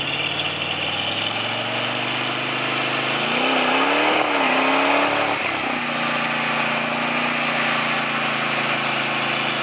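Off-road sand rail engine revving during a burnout, the rear tyre spinning in the dirt and smoking. The revs climb about two seconds in, hold high and wavering for a couple of seconds, then drop back sharply about six seconds in, over a steady hiss.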